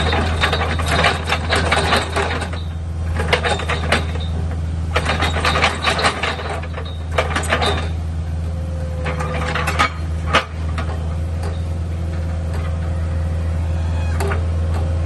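Compact track loader's diesel engine running steadily while its hydraulic auger drills and lifts out of a footing hole, with bursts of rattling and clattering from the auger and soil for the first ten seconds or so, then steadier running.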